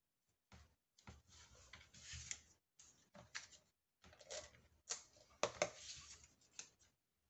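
Small paper tabs handled on a cutting mat and a tape-runner glue roller run over them: short rustling, scraping strokes, with a few sharp clicks near the middle as the roller is handled and set down.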